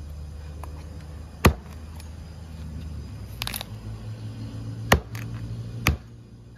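Large kitchen knife chopping a whole raw chicken on a round wooden chopping block. There are sharp chops about one and a half, five and six seconds in, and a short crackle of smaller cuts near the middle, over a low steady hum.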